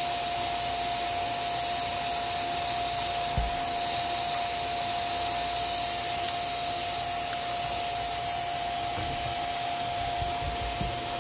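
Small electric motor of a handheld cleaning appliance running steadily with a high whine, used to clear dust from the feed dogs of a sewing machine. A light knock about a third of the way in.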